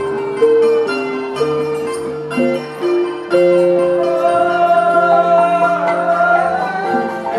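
Music with held, pitched mallet-struck notes changing step by step over a low sustained tone, and a wavering higher melody line coming in about four seconds in.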